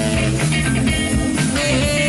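Live soul band playing an instrumental passage of an upbeat number, with no singing.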